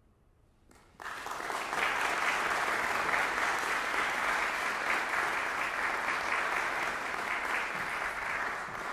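A small audience applauding. The clapping breaks out suddenly about a second in, after near silence, and keeps up steadily.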